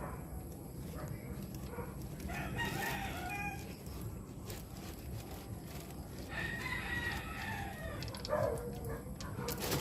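A rooster crowing twice, each crow a long pitched call of a second or more, over a steady low background hum.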